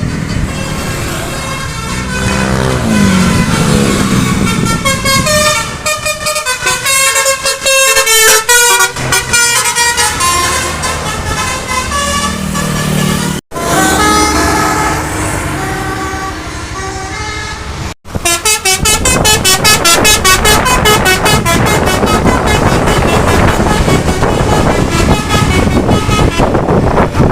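Bus 'telolet' basuri air horn playing a melody of quickly changing multi-note tones. It cuts off abruptly twice. After the second break, about two thirds of the way in, it switches to a fast stuttering run of short toots.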